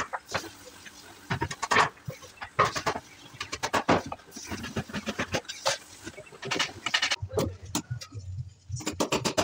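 Hammer striking wood in irregular blows, one to three a second.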